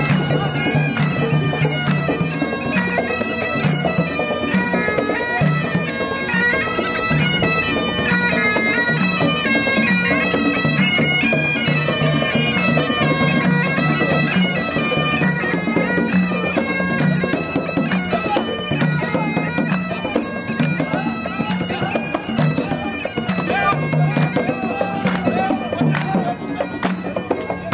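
Bagpipes of a marching pipe band playing a tune, with a steady low drone under a melody that steps up and down.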